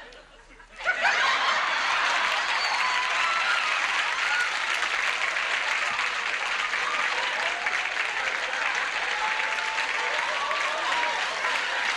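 A brief hush, then a studio audience applauding from about a second in, steady and sustained.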